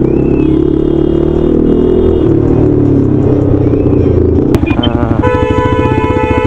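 Bajaj Pulsar RS200's single-cylinder engine running at low speed in slow traffic. About five seconds in, a vehicle horn starts and holds one steady note to the end, over engine pulses that settle to an even idle-like beat.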